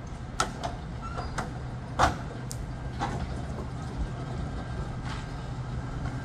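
B2-class tram rolling slowly over depot pointwork, its wheels giving a series of sharp clacks and knocks as they cross the rail joints and crossings. The loudest knock comes about two seconds in, over a steady low hum.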